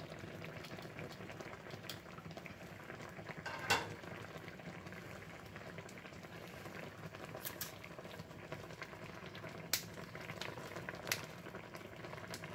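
Black-tea broth boiling hard in a frying pan around poaching chicken cutlets: a steady bubbling, reducing toward a gravy. A few sharp ticks stand out, the loudest about four seconds in.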